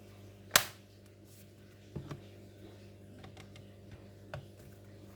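Hands handling a plastic laptop case: a sharp click about half a second in, another at about two seconds and a faint tap near the end, over a steady low hum.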